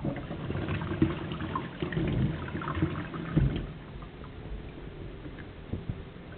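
Water splashing in a stainless steel kitchen sink as hands are rinsed, with a few small knocks. It dies down after about three and a half seconds.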